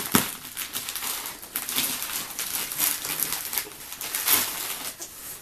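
Packaging being handled while pedals are unwrapped: irregular crinkling and rustling with scattered clicks, and a sharp knock right at the start.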